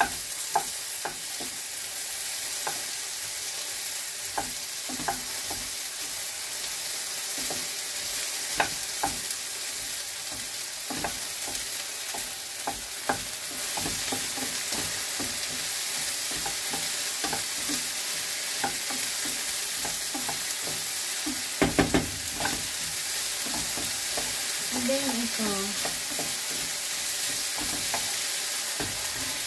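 Potatoes with onion and garlic frying and sizzling in a pan, stirred and scraped with a utensil. The potatoes are being cooked through before the egg goes in. There are scattered light clicks and a quick cluster of knocks about three-quarters of the way through.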